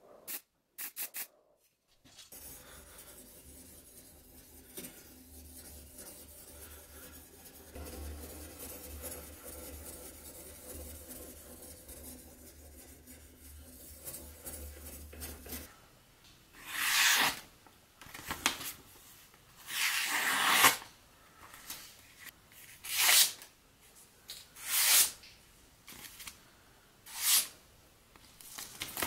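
Sharpening stone of a guided knife-sharpening system stroked along the edge of a large kitchen knife made from old saw-blade steel. It rasps steadily over a low hum at first. The hum cuts off about halfway through, and after that come loud, separate strokes about every two seconds.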